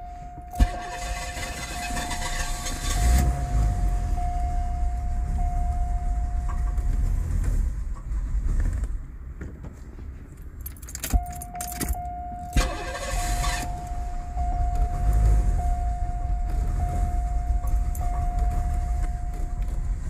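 The 1985 Cadillac DeVille's 4.9-litre V8 is cranked, catches and runs rough and struggling for a few seconds, drops away about halfway through, then is cranked again and catches, while a steady warning chime sounds and falls silent during the lull. The engine is running badly with no power, which the mechanic suspects comes from a restricted exhaust.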